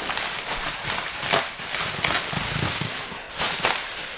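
Plastic bubble wrap being ripped and crinkled by hand, giving irregular crackles and snapping pops.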